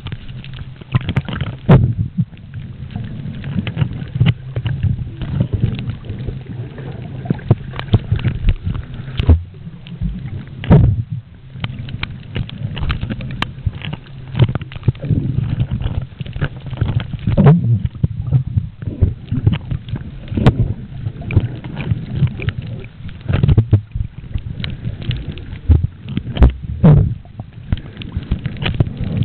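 Muffled underwater noise picked up by a submerged camera: a steady low rumble with frequent irregular clicks, knocks and gurgles.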